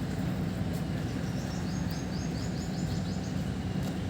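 Steady low background rumble of an open-air ground, with a small bird giving a quick series of short, repeated high chirps, about five a second, starting about a second in and stopping a little after the middle.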